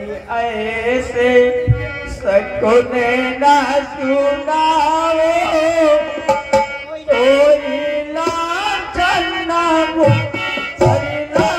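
Live stage music: a harmonium and tabla play under a voice singing long, wavering held notes, with occasional low drum strokes.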